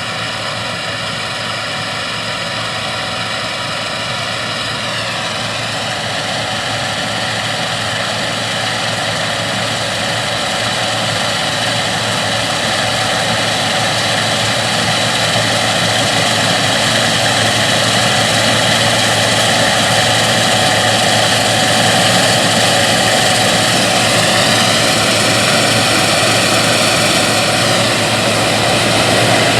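Gleaner S97 combine running in the field: a steady mechanical drone layered with many high whining tones, which shift briefly around five seconds in and again near twenty-five seconds, and the whole sound gradually grows louder.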